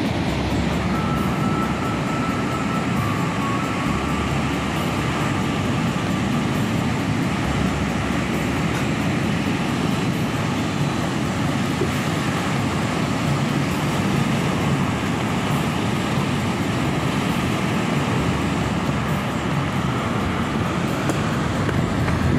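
Steady roar of sea surf on the beach, with wind buffeting the microphone in uneven low rumbles.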